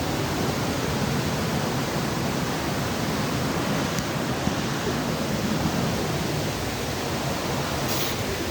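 Steady rush of falling water from a waterfall, an even noise with no change.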